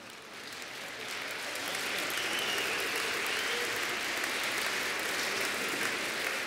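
Audience applauding, swelling over the first second or two and then holding steady.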